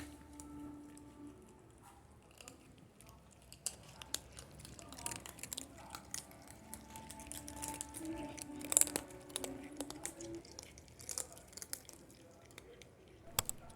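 Cats chewing dry kibble: scattered small crunches and clicks, with the loudest crunch about nine seconds in.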